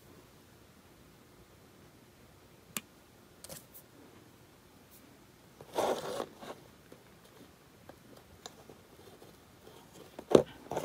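Protective film being peeled off a small thermal pad and the pad pressed onto a chip: a short tearing rustle about six seconds in and another near the end, with a sharp tick a little before three seconds and faint handling taps, otherwise quiet.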